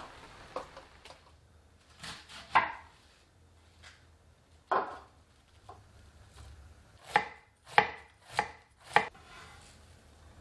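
Knife chopping food on a cutting board: a few scattered knocks, then four evenly spaced chops near the end.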